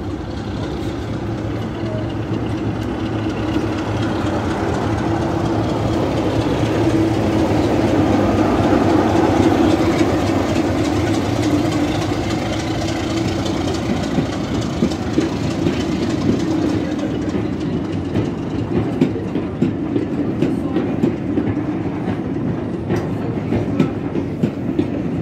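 A Class 33 diesel-electric locomotive's Sulzer eight-cylinder engine runs with a steady drone that grows louder as it passes, loudest about 8 to 10 seconds in. Then the train's coaches roll by, their wheels clicking over the rail joints.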